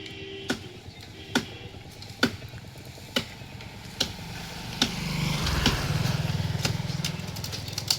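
A blade chopping into a tree branch in sharp, regular strokes, a little under one a second, over a low steady engine hum that grows louder about halfway through.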